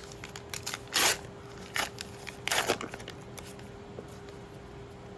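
Trading cards and a foil booster-pack wrapper being handled: a few short rustling bursts, the loudest about a second in and two more around two and two and a half seconds, with small clicks between.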